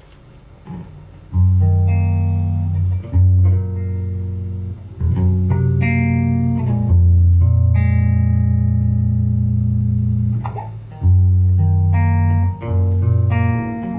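Guitar playing a slow instrumental intro: held chords over deep low notes that change every second or two. It starts about a second in, after a few soft knocks.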